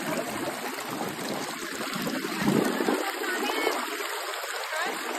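Shallow rocky river rushing and splashing over stones in a steady wash of water noise, swelling briefly about halfway through.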